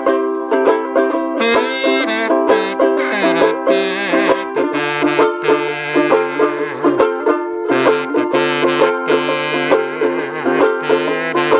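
Banjo ukulele strumming and finger-picking a steady chord accompaniment. From about a second and a half in, a small brass horn played hands-free carries the tune over it.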